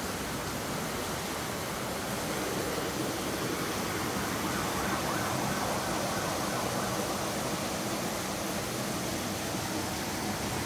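Steady rushing of water cascading from a small waterfall into a pool, growing a little louder for a few seconds in the middle.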